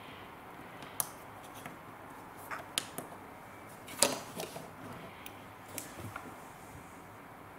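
A series of small, sharp plastic clicks and taps as a capacitor's leads are pushed into a component tester's ZIF socket and the socket lever and test button are worked; the loudest click comes about four seconds in.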